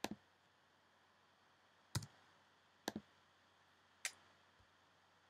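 Computer mouse clicking four times, short sharp clicks about a second apart, the first and third doubled, against a quiet room.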